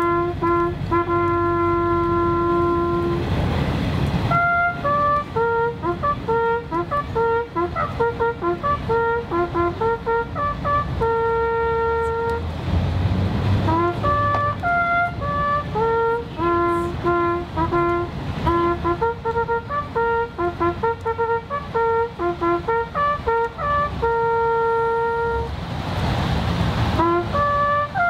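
Highland bagpipes playing a slow tune. The held melody notes step up and down with quick ornamental notes between them, over a continuous steady drone.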